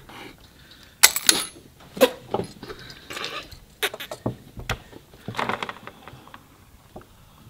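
Scattered sharp clicks and clinks of small hard objects on a tabletop, the loudest about a second in.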